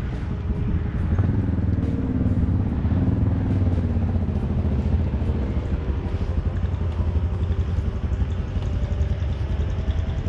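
A motorcycle engine running, its pitch sinking slowly over the first few seconds, then holding steady.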